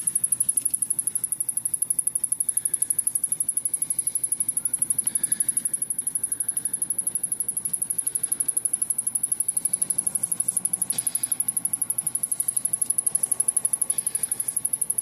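Samsung rear-projection CRT television ticking with a rapid, even, high-pitched chirp, its main power supply repeatedly trying to start: the sign of something shorting out, as the owner suspects.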